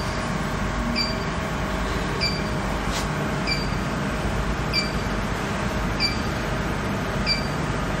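Steady mechanical running of a vacuum induction melting furnace's roughing vacuum pump, pumping the chamber down toward the pressure at which the molecular pump can be started. A short high chirp repeats about every second and a quarter over the hum.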